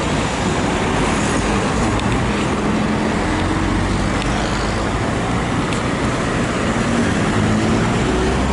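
Road traffic at a city intersection: cars passing close by, tyres and engines blending into a steady noise, with engines rising in pitch a few times as cars pull through.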